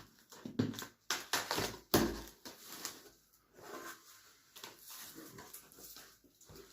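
Cardboard delivery box being handled and opened: several sharp knocks and taps in the first couple of seconds, then softer scraping and rustling.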